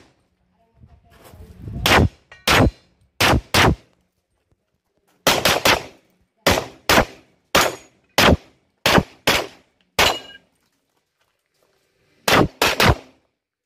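9mm 1911 pistol fired in quick pairs and short strings of shots during a practical-shooting stage, about twenty in all. The strings come with short pauses between them, and a last fast group of three follows a longer pause near the end.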